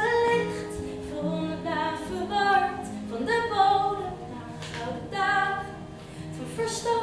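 A woman singing with her own acoustic guitar accompaniment, in long held notes.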